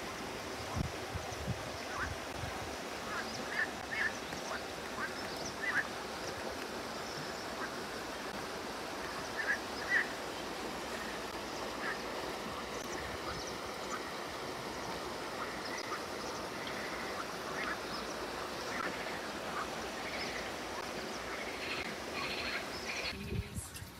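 A river running steadily, with short bird calls scattered over it, busiest in the first ten seconds. The sound drops away sharply just before the end.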